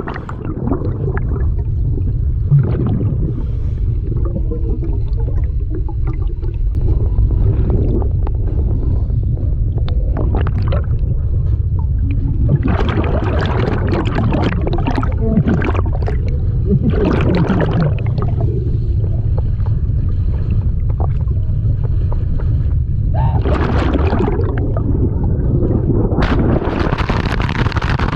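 Underwater beneath a waterfall: a loud, steady low rumble of the falling water churning the pool. Every few seconds there are louder bursts of bubbling and gurgling that last a second or two.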